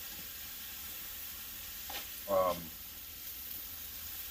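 Sliced peppers, onions and mushrooms sizzling steadily in a light coating of oil on a Blackstone flat-top griddle over medium-low heat. A brief voice cuts in about two seconds in.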